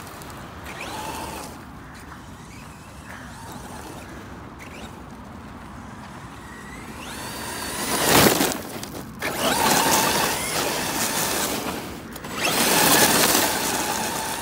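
Electric RC car being driven, its motor whining up and down in pitch, with a loud hit about eight seconds in and two long rushing stretches after it.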